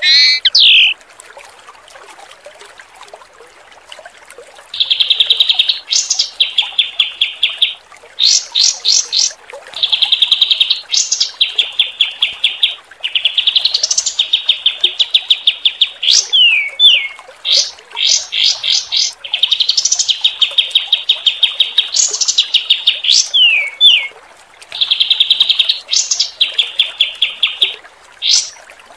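Songbird song used as masteran training material: fast trills of evenly repeated sharp notes in bursts of two to three seconds, broken by high upward-sweeping whistles and a few falling slurs. Under it runs a faint wash of running water. The song starts about five seconds in, after a short lull.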